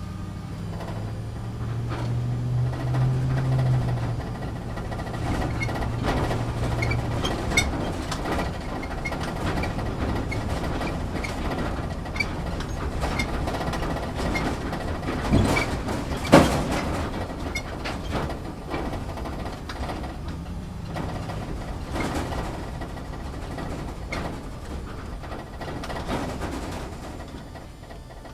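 Inside a vehicle's cabin on rough off-road ground: the engine pulls with a low drone for the first several seconds while the body, fittings and load rattle and creak constantly, with scattered knocks from bumps. Two sharp knocks come about 15 and 16 seconds in, the second the loudest.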